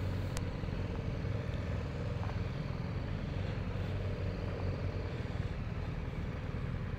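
Motorcycle engine running steadily at low revs, with a single sharp click about half a second in.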